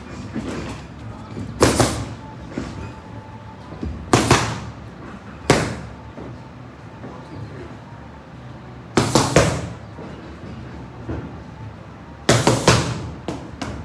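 Boxing gloves smacking focus mitts in short combinations of one to three sharp punches every few seconds, the smacks ringing in the gym.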